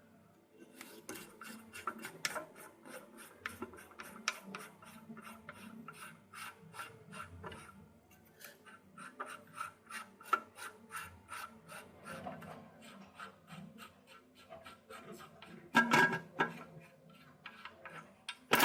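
Plastic nut being unscrewed from the threaded shank of a toilet cistern fill valve: a long run of quick rasping clicks as the threads turn, with a louder knock about 16 seconds in.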